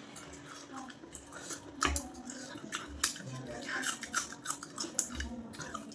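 Close-up chewing of goat-head curry with rice: irregular crunchy clicks and wet mouth smacks, with no steady rhythm.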